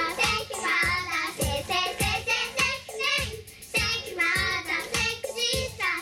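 A group of young girls singing a pop song in unison into microphones over backing music with a steady beat.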